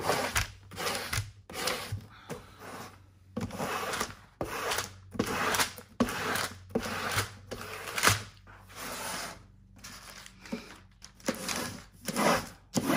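Plastic squeegee burnisher rubbing over a paper release liner in quick, repeated strokes, about two a second. It is pressing a dry-mounted print so the 3M 568 adhesive bonds to a wooden panel.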